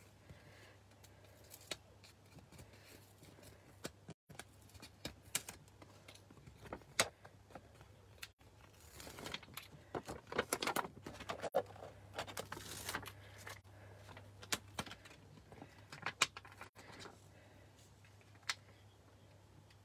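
Paper rustling and crinkling as card stock and adhesive sheets are handled and stuck together, with scattered small taps and clicks. It is busiest from about nine to thirteen seconds in.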